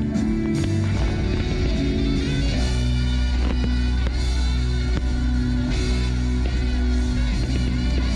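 Rock-style music with a strong, sustained bass line, playing continuously.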